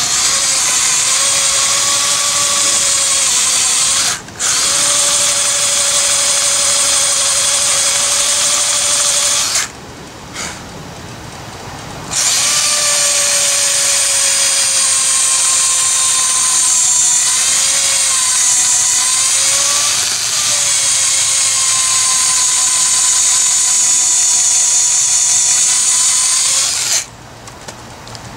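Electric drill boring holes into the old wooden handle wedged in a sledgehammer head's eye, to drill the handle out: a steady motor whine that dips briefly about four seconds in. It stops for a couple of seconds around ten seconds, starts again with its pitch sagging under load a few times midway, and stops shortly before the end.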